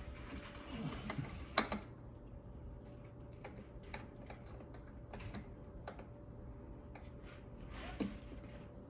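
Scattered light clicks and knocks of an aftermarket turbo inlet pipe being worked and pushed into its fitting by hand, with the loudest knock about one and a half seconds in.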